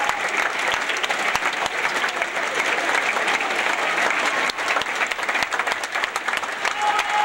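Large theatre audience applauding steadily: dense, continuous clapping.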